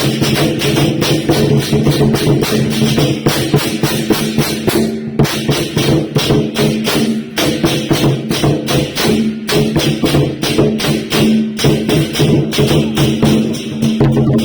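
Temple festival music: rapid, steady percussion strikes, cymbal- and drum-like, over sustained pitched tones.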